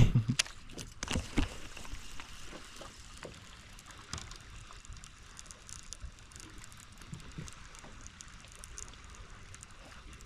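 Water lapping against a fishing boat's hull, a faint steady wash with small ticks, after a few sharp knocks in the first second or so.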